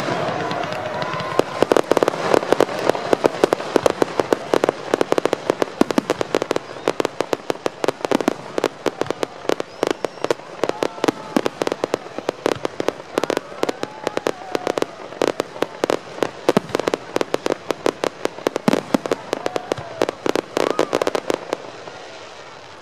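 Aerial fireworks display: a rapid, near-continuous series of bangs and pops from bursting shells, easing off slightly near the end.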